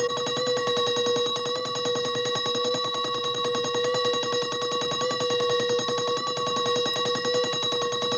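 Mechanical alarm clock bell ringing on and on without a break, its clapper hammering the bell in a fast, even trill at one steady pitch.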